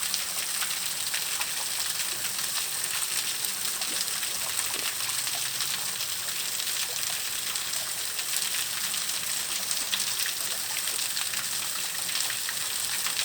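Steady hiss with faint, scattered crackles: bacon strips sizzling as they roast over a wood campfire.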